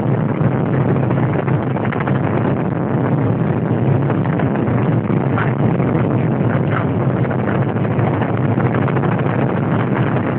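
Helicopter in flight: a steady, loud drone of rotor and engine with a constant low hum.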